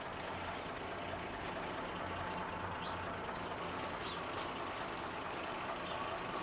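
Steady low hum of an idling vehicle engine, with a few faint ticks.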